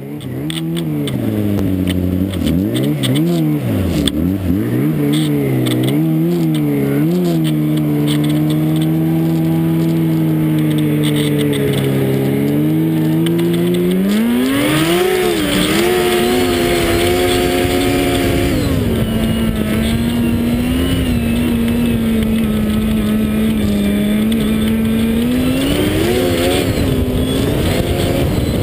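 Snowmobile engine running under way. Its revs rise and fall for the first several seconds, then hold steady. They climb sharply about halfway through, settle lower for the last third, and rise again near the end.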